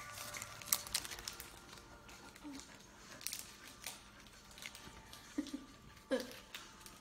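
Background music, with a snack bar's plastic wrapper crinkling as it is torn open. Two short low sounds about five and six seconds in.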